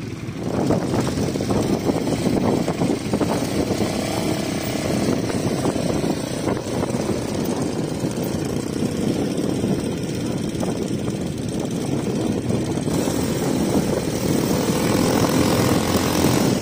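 ATV (quad bike) engines running steadily as the quads ride across sand.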